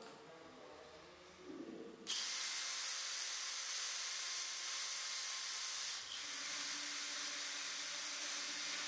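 Makita DDF484 18 V brushless cordless drill-driver drilling into a steel square tube. Its sound is a steady, even hiss that starts abruptly about two seconds in, with a short dip near six seconds.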